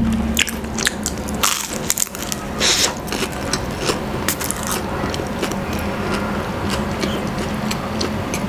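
Close-miked eating of a flaky ham-and-cheese pastry: the crisp crust crackles and crunches as it is torn and chewed. The loudest crunches come in the first three seconds, followed by smaller crackles.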